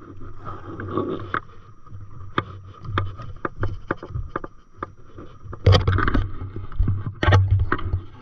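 Small waves slapping against an inflatable paddleboard, with irregular knocks and bumps on the board. The knocks are loudest about six and again about seven seconds in.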